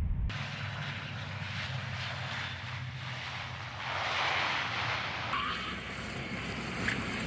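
Jet airliner engines and rushing air as the airliner lands and rolls down the runway, with a louder swell about four seconds in.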